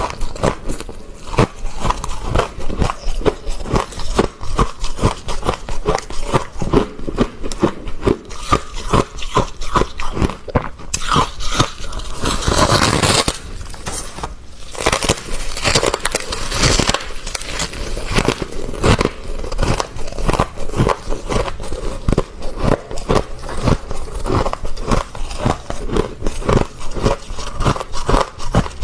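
Close-up crunching of soft, crispy freezer frost grown with a humidifier, a dense run of quick crackling crunches, with a stretch of steadier scraping about halfway through.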